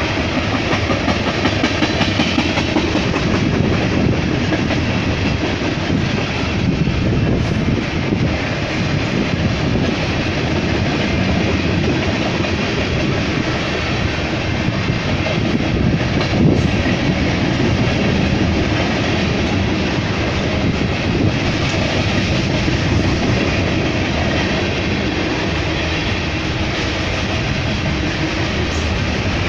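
BNSF manifest freight train's tank cars rolling past close by: a steady, loud rumble of steel wheels on rail. A single sharper knock stands out about halfway through.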